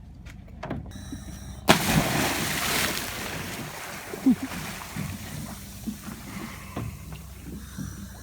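A person jumping into the water: a sudden loud splash about two seconds in, then water washing about with small splashes.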